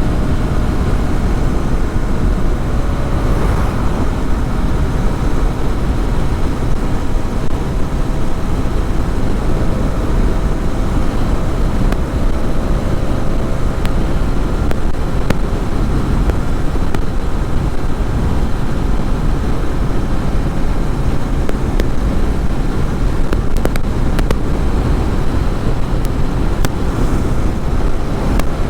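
Hero Xtreme 250R's single-cylinder engine running at a steady speed while the motorcycle is ridden, with a dense low rush of wind and road noise over the microphone. A few light clicks come near the end.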